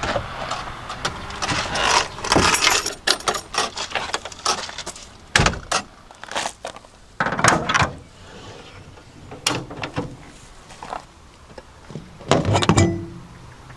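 A run of separate clicks, knocks and short rattles as a 1959 Citroën 2CV is readied for hand-cranking: the ignition key is worked with its key bunch jangling, and the metal starting crank is taken from its clips under the bonnet. The engine is not yet running.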